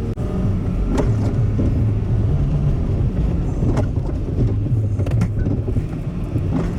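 Truck engine and road noise heard from inside the cab while driving on snowy roads: a steady low hum with a few short clicks or knocks along the way.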